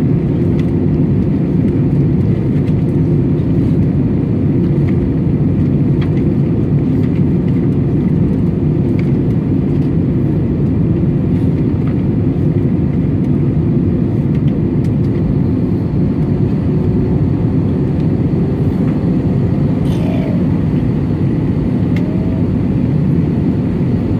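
Steady low drone of an Airbus A320-200 in flight, its engine and airflow noise heard inside the passenger cabin.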